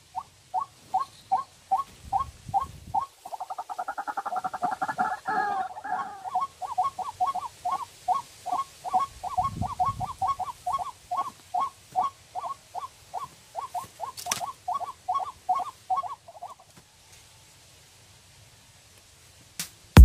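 Recorded rail calls played as a trapping lure from a small portable speaker: one call repeated about three times a second, with a burst of rapid chattering a few seconds in, stopping about three-quarters of the way through.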